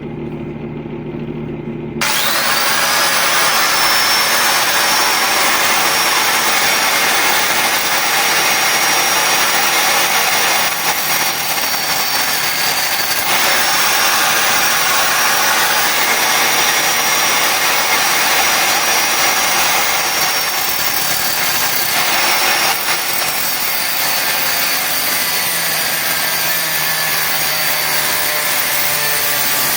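Angle grinder switched on about two seconds in, its high whine rising as the motor spins up, then running steadily with a loud, harsh noise.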